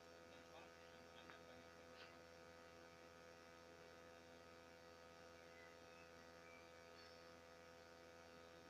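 Near silence: a steady electrical hum with a faint buzz, and a few faint ticks in the first couple of seconds.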